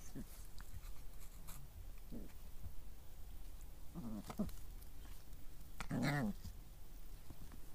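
Puppies giving a few short yips, the loudest about six seconds in, with faint clicks between them.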